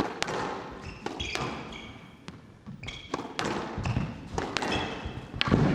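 Squash rally: a string of sharp hits of the ball off racket and walls, mixed with short high squeaks of shoes on the court floor.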